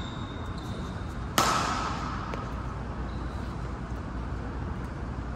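A badminton racket hitting a shuttlecock once: a single sharp crack about a second and a half in that rings on in the hall's echo, over a steady low hum of the hall.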